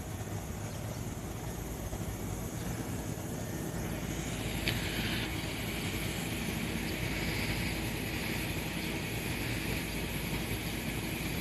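Tobu 350 series electric train during a shunting move, making a steady low mechanical rumble. About four seconds in, a higher hissing noise joins and carries on, with a brief sharper hiss just before five seconds.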